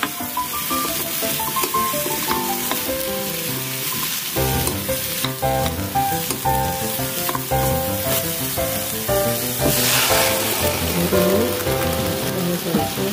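Fish cakes, radish and onion sizzling in a hot frying pan as they are stirred with a spatula, with background music playing. About ten seconds in there is a brief louder hiss.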